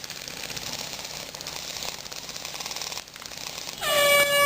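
Rapid automatic airsoft gunfire, a fast even rattle of shots, for about three seconds. Near the end, a loud steady horn blast starts.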